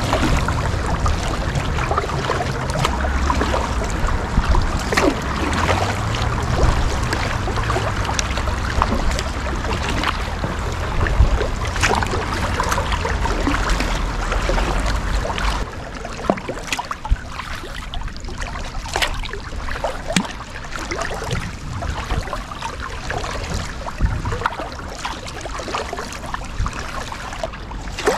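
Kayak paddling: the paddle blades dip and splash and water drips and trickles, with many short splashes. A low rumble under the first half drops away about halfway through, and the sound gets quieter from there.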